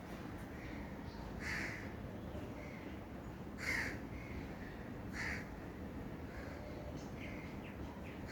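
A crow cawing three times, a couple of seconds apart, the middle call loudest, with faint chirps of smaller birds in between over steady low background noise.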